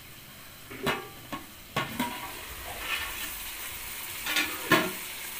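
Metal clanks as the aluminium lid is lifted off a pot of country chicken, then a steady sizzle of the chicken cooking in its own juices, with more metal clanks near the end.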